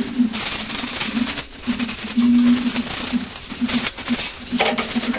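Scrubbing during bathroom cleaning: uneven rough rubbing strokes, with a low hum that keeps starting and stopping.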